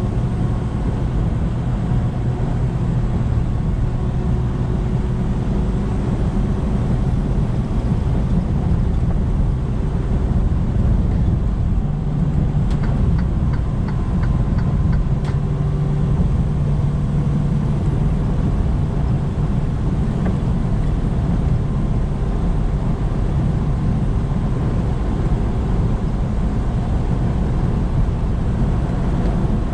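Semi-truck's diesel engine and road noise droning steadily inside the cab while cruising on the highway. The engine note rises a little in pitch about halfway through, then settles back.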